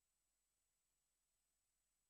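Near silence: a soundless track with only a very faint, steady hiss.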